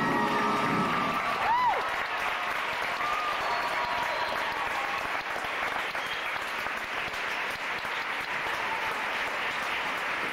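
Theatre audience applauding as the swing music ends, with one short rising-then-falling cry from the crowd about a second and a half in.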